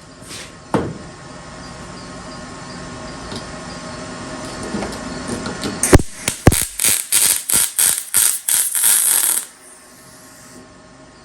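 Welder stitch welding a steel car quarter panel: a quick run of about ten short arc bursts, roughly three a second, starting past the middle and stopping abruptly. A single sharp click comes near the start.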